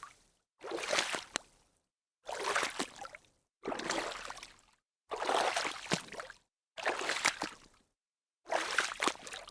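Hand splashing water in small splashes: six separate splashes, each about a second long, with dead silence between them.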